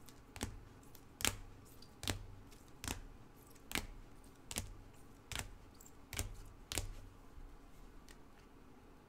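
Rigid plastic top loaders holding trading cards clacking against each other as they are flipped one by one through a stack. About nine sharp clicks, a little under a second apart, stopping about seven seconds in.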